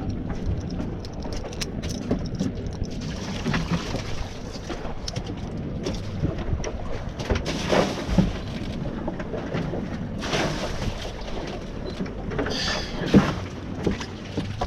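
Boat on open water: steady wind and water noise, with a few short knocks and splashes.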